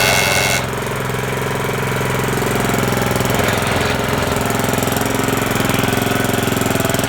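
Toro Greensmaster 1600 walk-behind reel mower running steadily with its drive engaged, making the noise it gives off in drive. A brief high-pitched squeal sounds in the first half-second.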